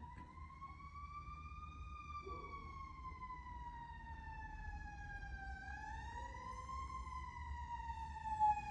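Faint emergency-vehicle siren wailing, its pitch sweeping slowly up and down twice in long glides.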